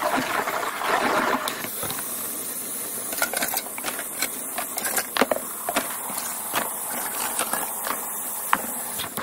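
Kitchen faucet running a steady stream of water into a stainless steel sink full of soap suds, with a few light clinks as dishes go into the water.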